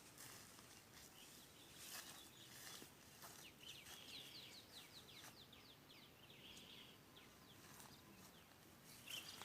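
Faint forest ambience with a bird giving a rapid series of short, falling chirps, about ten in a row, in the middle of the stretch, plus a few soft rustles.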